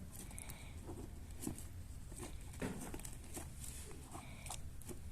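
Cockatiels moving about, with scattered light clicks and scratches and two brief faint tones, one near the start and one near the end.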